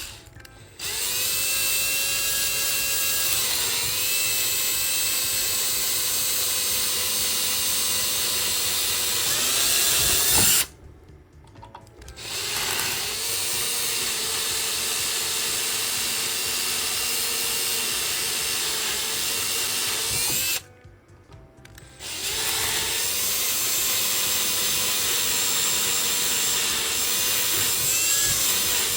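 Small power drill running on a laptop hinge in three long runs of about eight to nine seconds each. Each run has a steady whine that rises in pitch as the motor spins up, then stops suddenly.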